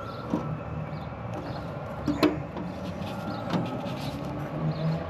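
A few short, sharp metallic clicks as a thin sheet-metal bracket is cut with hand snips, the loudest about two seconds in, over a steady low hum.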